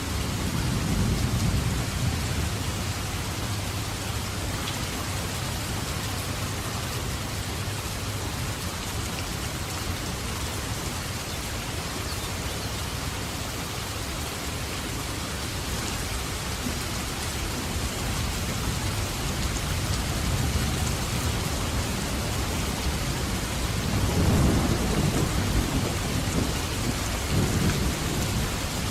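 Steady heavy rain with rolls of thunder rumbling low, one just after the start and a longer, louder one from about 24 seconds that swells and fades.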